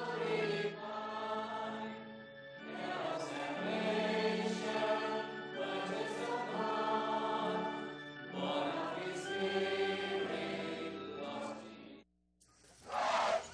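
A mixed congregation of men, women and children singing a hymn together in long phrases, over steady held notes from a keyboard instrument. The singing stops near the end, and a brief loud rushing burst follows.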